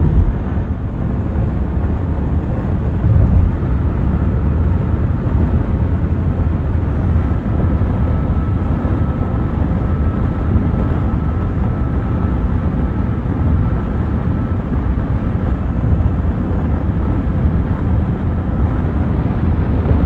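Wind noise inside a Tesla Cybertruck's cab at highway speed: a steady rush of air over a low road rumble, with a faint steady whistle for a stretch in the middle. It is the sign of outside air still leaking into the cab, a fault that a service visit has not cured.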